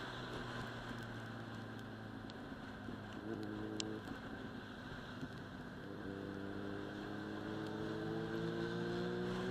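Inline-four sport motorcycle engine running at a steady speed, then climbing slowly in pitch over the last few seconds as the bike accelerates, with wind rushing over the microphone.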